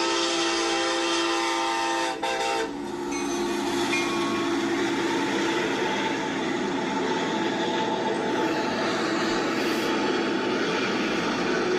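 Diesel freight locomotive air horn sounding one long blast, which breaks briefly and then cuts off about two and a half seconds in. After it comes the steady noise of the running train.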